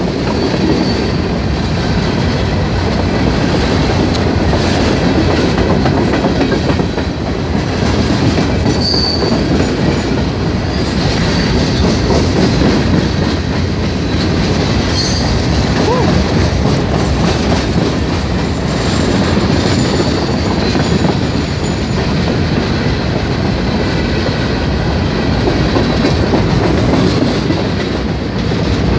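Slow freight train of steel hopper cars and boxcars rolling past close by: a steady rumble and clatter of wheels over the rail joints, with brief high-pitched wheel squeals a few times.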